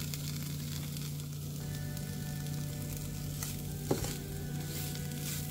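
Grated coconut frying in a hot tempering pan with spices and dried shrimp, sizzling steadily as it is stirred, with a single knock about four seconds in.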